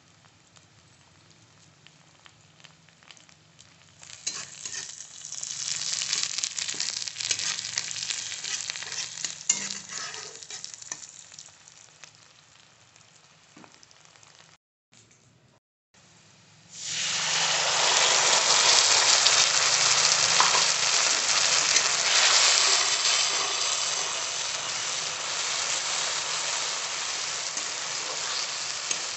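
Oil sizzling in a kadai as sliced onions and green chillies fry, rising about four seconds in and fading again. After a short break, a much louder sizzle starts suddenly and runs on steadily as a wet paste cooks in the hot oil and is stirred with a spatula.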